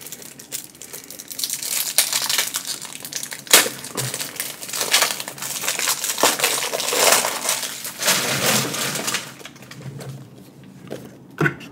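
Plastic packaging of a new pack of card top loaders being torn open and crinkled by hand, irregular rustling broken by a few sharp clicks.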